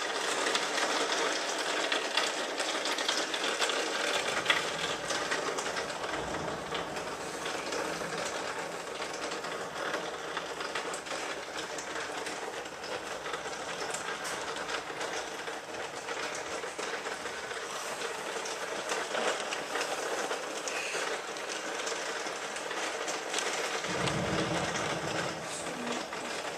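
Heavy thunderstorm rain falling steadily, a dense hiss full of tiny drop impacts. A low rumble of thunder swells briefly near the end.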